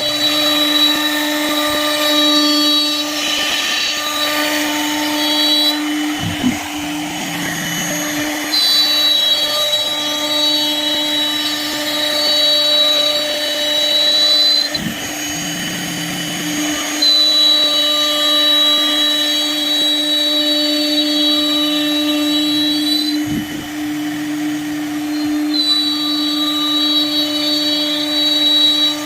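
A woodworking power tool's motor running steadily. A higher whine comes and goes in stretches of about five seconds, with a short low thump between stretches, about every eight seconds.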